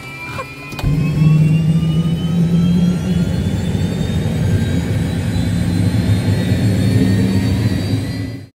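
Helicopter turbine engine spooling up: a whine rising steadily in pitch over a loud, steady low drone that jumps up suddenly about a second in. A few clicks near the start, and the sound cuts off abruptly near the end.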